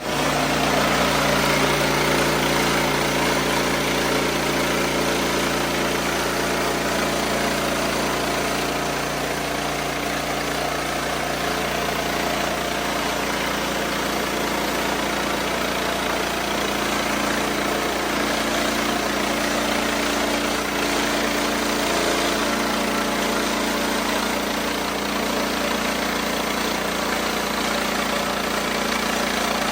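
Wood-Mizer LX55 sawmill engine running steadily.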